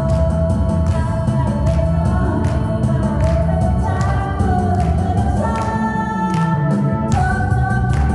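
Korean trot song: a sung vocal line holding long notes over a full band backing with a steady drum beat.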